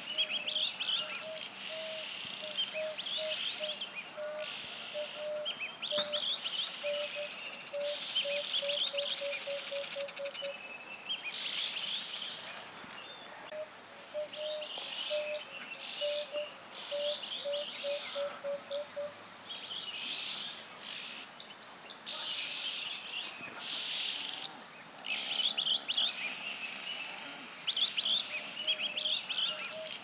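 Red-billed oxpeckers calling: repeated hissing, buzzy chattering calls. Under them runs a series of low, evenly spaced notes that comes twice.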